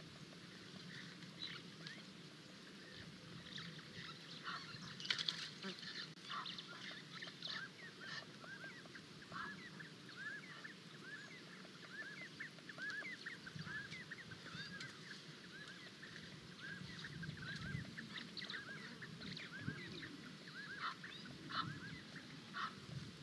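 A flock of birds calling: a dense chatter of short, rapid, hooked calls that thickens about four seconds in and keeps going, with a brief louder crackle about five seconds in.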